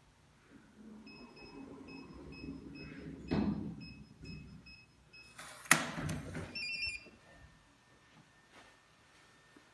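Digital door lock keypad beeping as the code is entered: a run of short, evenly spaced beeps over about four seconds. Then a sharp loud clack as the lock releases, followed at once by the lock's brief electronic unlock chime.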